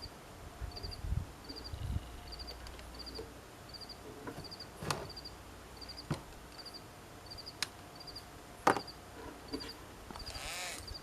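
An insect chirps steadily in short, regular pulsed chirps, with scattered sharp clicks and knocks, the loudest about two-thirds of the way in. Near the end the vintage electric hand drill's motor briefly spins up and winds down.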